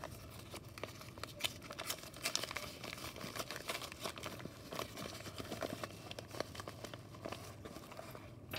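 Plastic mailer bag crinkling and crackling as it is handled and opened by hand, a dense run of small crackles.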